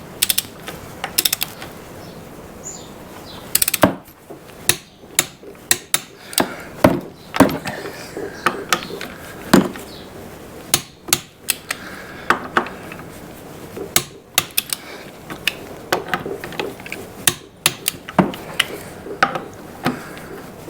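Click-type torque wrench ratcheting on front wheel nuts, a long run of sharp, irregular clicks, with the wrench set to 20 newton metres.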